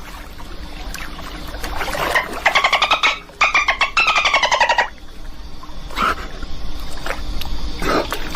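An animal calling: two rapid trilled bursts of high, pulsed notes, each a couple of seconds long and slightly falling, then single shorter calls about six and eight seconds in, over a steady low background rumble.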